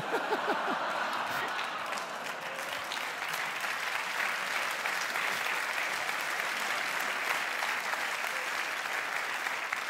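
A large theatre audience applauding steadily, with laughter in the first second.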